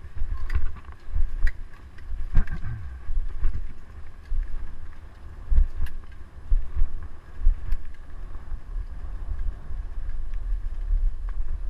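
Wind buffeting the microphone over the low rumble of a dog-drawn rig rolling along a forest track behind two huskies, with scattered sharp knocks and rattles as it jolts over the ground.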